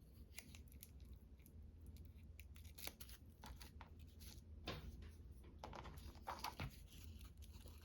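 Faint, scattered clicks and crinkles of paper craft materials, tape and bubble wrap being handled, with a steady low hum underneath.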